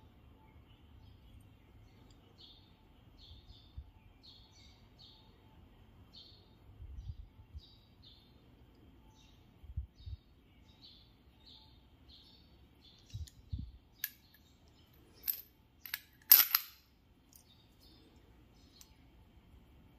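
A small bird chirps over and over in short, faint calls, with a few soft low thumps. From about 14 seconds in come several sharp clicks and knocks, the loudest about 16 seconds in.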